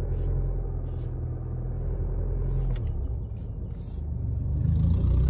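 A 2020 Isuzu's engine running steadily at low revs, heard from inside the cabin as it rolls slowly, with a few short irregular clicks over it. The clicks fit the noise from the steering wheel that the owner is listening for.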